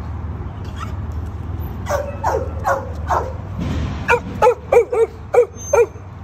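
A dog barking: a few drawn-out yelping barks about two seconds in, then a quick run of short, high barks, two or three a second, from about four seconds in, over a steady low rumble.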